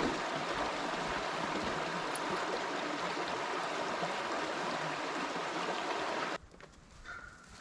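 Steady rushing of a flowing woodland stream, which cuts off suddenly about six seconds in, leaving a much quieter background with faint ticks.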